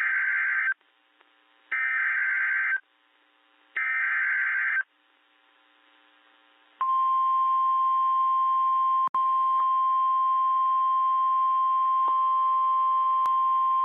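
NOAA Weather Radio alert signal: three short bursts of the SAME digital header, each about a second long and a second apart, then the steady 1050 Hz warning alarm tone starting about seven seconds in, with a brief dropout about nine seconds in. The header and tone announce a warning broadcast, here a severe thunderstorm warning.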